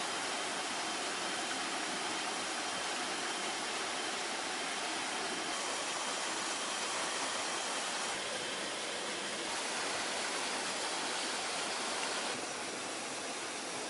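Steady rushing of flowing stream water, with a faint thin high whine over it. The level shifts slightly a few times and drops a little near the end.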